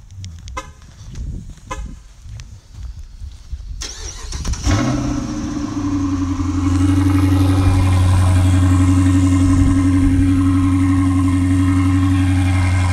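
Dodge Charger with its mid muffler deleted: two short chirps, then about four seconds in the engine cranks and fires, settling into a loud, steady idle through the exhaust.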